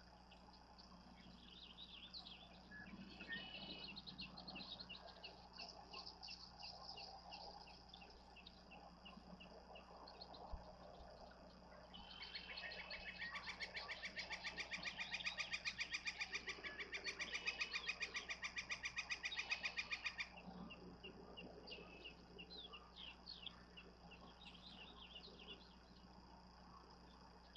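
Small songbirds chirping and singing, with a fast, continuous trill of rapid high notes from about twelve to twenty seconds in, the loudest sound.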